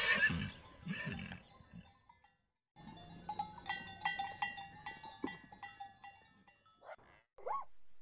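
A horse's whinny trailing off over the first second or two. After a brief silence, a dog whines, with two short yelps near the end.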